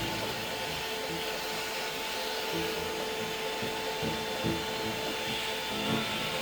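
A vacuum cleaner running steadily with a constant whine, sucking up metal shavings left from drilling.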